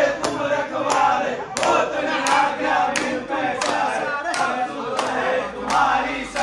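A group of men's voices chanting or singing together in rhythm, with a sharp beat about every two-thirds of a second.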